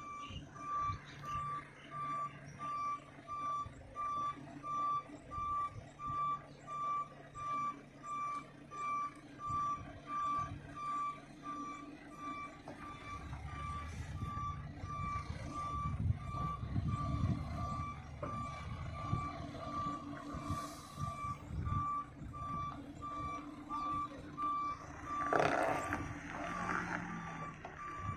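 A reversing vehicle's back-up alarm beeping steadily at one pitch, over the low rumble of its engine, which grows louder about halfway through as the vehicle backs. Near the end there is a short, loud hiss.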